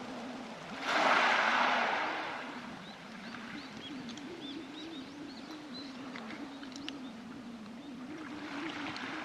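Waves washing up a pebble beach: a wave comes in with a sudden hiss over the stones about a second in and fades over the next second or two, with another smaller swell near the end. Small high chirps sound in the middle, over a low wavering hum.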